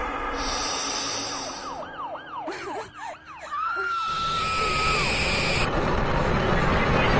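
Electronic sound effects: a high hiss, then a quick run of falling siren-like swoops, then a held whistling tone that drops off at its end, followed by a steady hiss that grows louder.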